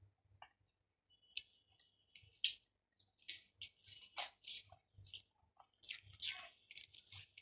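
A person chewing a mouthful of food with the lips closed: faint, irregular wet mouth clicks and smacks.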